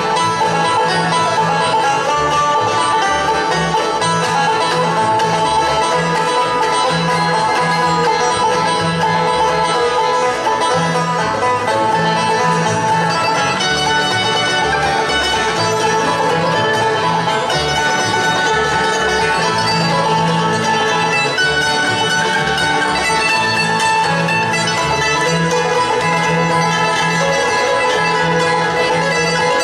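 Bluegrass band playing live: banjo, fiddle, mandolin, acoustic guitar and upright bass together, the bass keeping a steady beat under the picking.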